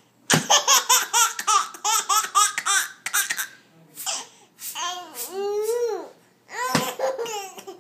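Baby laughing hysterically: a rapid run of high-pitched giggles for about three seconds, then a long drawn-out squeal that rises and falls in pitch, and another short burst of laughter near the end.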